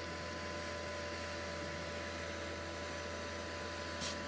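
Steady hum and hiss of an egg incubator's fan running, with a brief scratchy rustle near the end.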